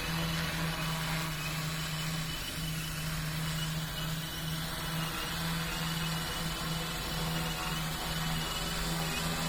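Agricultural spraying drone in flight: its rotors give a steady hum with a rushing hiss.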